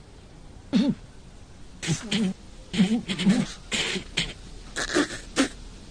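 A cartoon teenage boy's voice making a string of short sputtering, snickering mouth noises, about six quick bursts.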